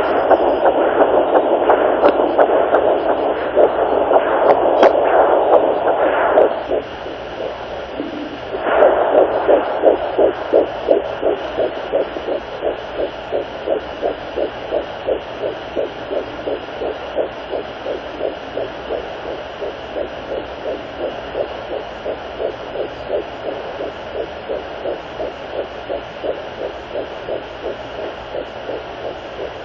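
Handheld fetal doppler's speaker at 10 weeks of pregnancy: a loud, uneven rushing noise while the probe searches, then from about nine seconds in a fast, steady, rhythmic whooshing beat of the fetal heartbeat.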